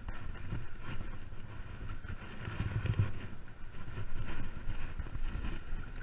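Wind rumbling and buffeting on the microphone, with a hooked fish splashing and thrashing at the surface as it is played in on a spinning rod.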